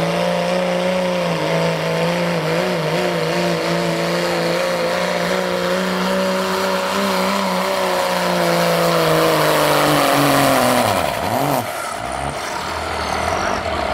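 Turbocharged diesel engine of a Ford Super Duty pickup pulling a sled at full throttle, its note sinking slowly as it loads down. Near the end the throttle is let off and the engine drops away, and a high turbo whine winds down.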